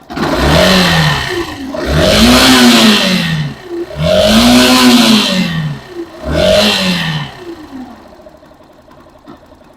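Yamaha Factor 150's single-cylinder engine blipped four times, each rev rising and falling, then dropping back toward idle. It makes a strong noise from the bottom end like a droning crankshaft bearing, which the mechanic traces to a failing magneto stator that has stopped charging the battery.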